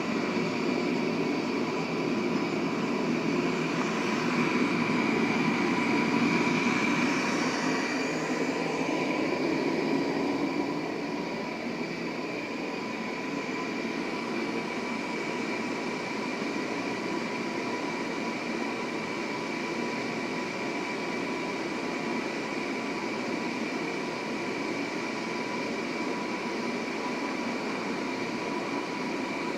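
Propane forge burner of a KnifeSmith forge running steadily, a continuous rushing hiss of burning gas with faint steady whistling tones, while a bar of mild steel heats inside. It eases a little quieter about ten seconds in, then holds steady.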